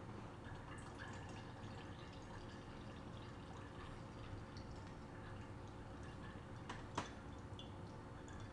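Fruit cocktail syrup trickling from a tilted can in a thin stream into a glass jar, with faint drips. A single sharp click sounds about seven seconds in.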